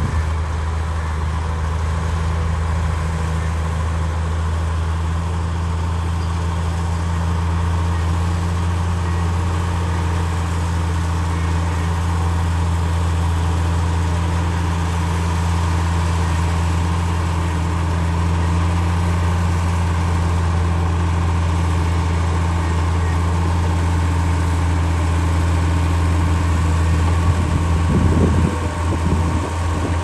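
Komatsu D53P crawler bulldozer's diesel engine running steadily under load while it pushes earth with its blade, a constant low drone. Irregular knocking and rattling joins it near the end.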